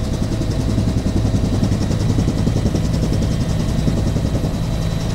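Helicopter engine and rotor noise heard from inside the cabin, a loud, steady drone with no change in pitch.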